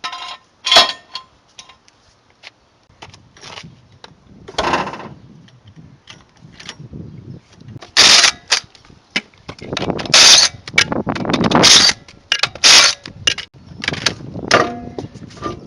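Impact wrench hammering in several bursts, about a second long each, as it spins the wheel's lug nuts off, with metallic clanks between the bursts.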